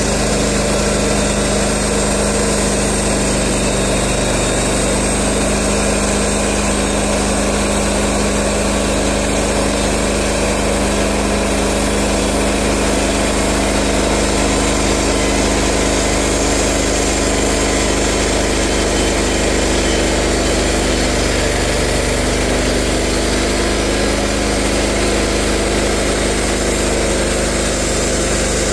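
Portable band sawmill with its gas engine running steadily as the band blade cuts lengthwise through a tulip poplar log.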